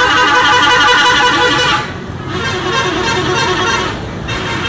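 Coach bus's multi-tone horn sounding in two long blasts of several wavering tones together, with a short break a little under two seconds in.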